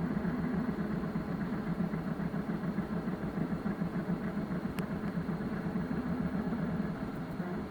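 3D printer running: a steady low mechanical hum that flickers quickly as its motors move.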